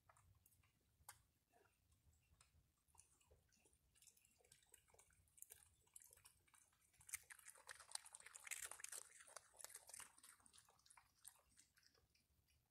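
Faint crunchy chewing and small clicks from a raccoon and a Virginia opossum eating and picking through dry food. The sound is busiest and loudest a little past the middle.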